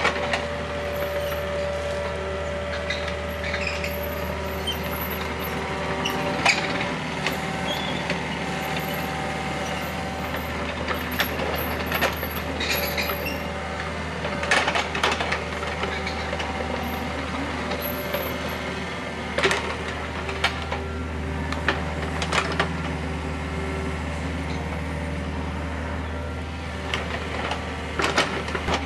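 Kubota KX91-2 mini excavator's diesel engine running at a steady drone, with sharp scrapes and knocks from time to time as the bucket works through pit gravel.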